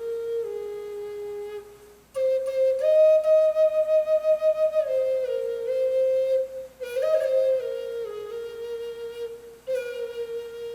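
Hand-carved Native American-style wooden flute playing a slow melody of held notes that step up and down, broken into phrases by short breath pauses about two, seven and ten seconds in.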